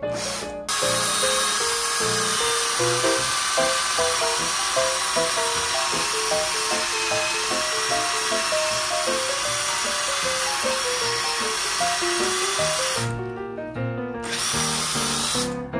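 Cordless drill, run off a lead-acid battery, boring through a wooden slat with a step drill bit: a steady motor whine and cutting noise for about twelve seconds, a short pause, then a brief second run near the end. Background music plays underneath.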